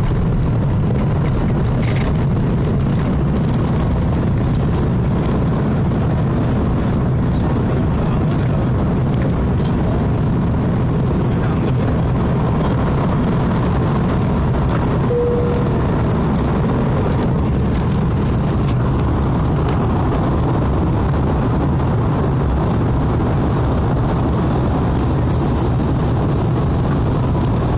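Airbus A330's jet engines and airflow heard from inside the passenger cabin during the takeoff roll, liftoff and initial climb: a loud, steady low rumble with a rushing noise over it.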